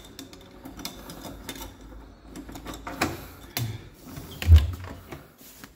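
Key rattling and clicking in a door lock as it is worked, with a sharp click about three seconds in. A low thump about four and a half seconds in, the loudest sound, as the lever handle is pressed and the door pushed.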